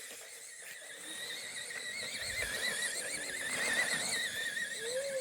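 Remote-control car's electric motor and gears whining at high pitch as it drives, the pitch wavering quickly up and down.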